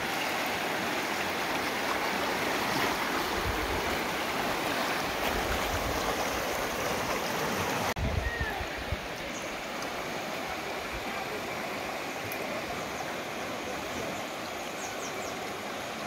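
Crișul Repede river rushing fast, a steady wash of moving water. About halfway it cuts to a slightly quieter stretch of the same river.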